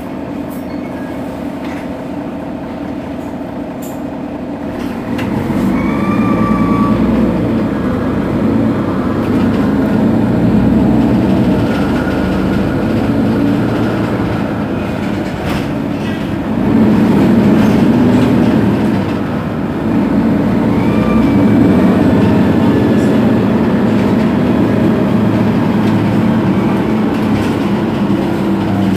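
Mercedes-Benz Citaro G articulated city bus's diesel engine running at standstill, a steady rumble that grows louder about five seconds in, dips briefly past the middle, then picks up again.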